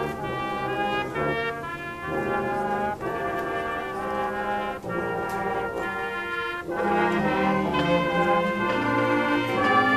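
High school marching band's brass section playing held chords that change every second or two, getting louder about seven seconds in.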